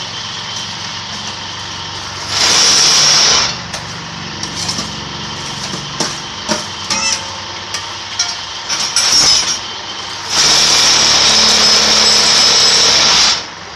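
Electric concrete-block press machine running: its motor hums steadily, with two loud stretches of harsh mechanical noise, one about a second long and a longer one of about three seconds near the end, and scattered clanks in between.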